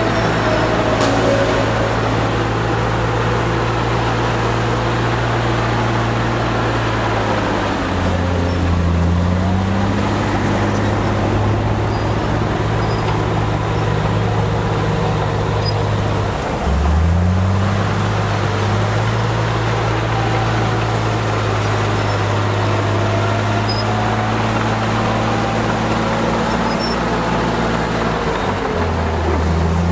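Heavy diesel engine of earthmoving equipment running steadily under load. Its pitch drops about a quarter of the way in, dips and climbs back halfway through, and drops again near the end as the revs change.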